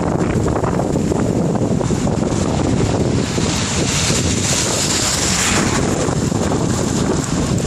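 Wind buffeting the microphone of a camera carried on a moving bicycle: a loud, steady, low rumbling noise. A higher hiss swells in the middle and fades again.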